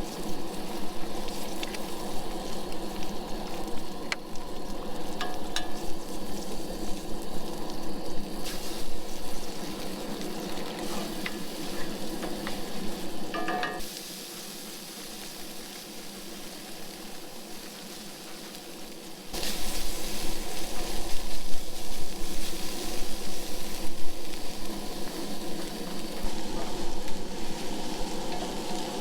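Food sizzling in a cast iron skillet, eggs just cracked in, with light ticks from stirring. It drops quieter for about five seconds in the middle, then comes back louder.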